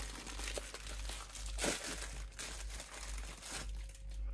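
Thin clear plastic wrapping crinkling and crackling as a small silicone mold is unwrapped by hand, with a louder crackle about halfway through. The crinkling dies away shortly before the end.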